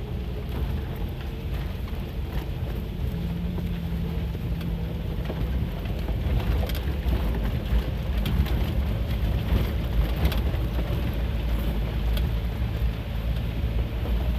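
Vehicle driving over a rough gravel road, heard from inside the cabin: a steady low engine and tyre rumble with scattered ticks and crunches from the stones.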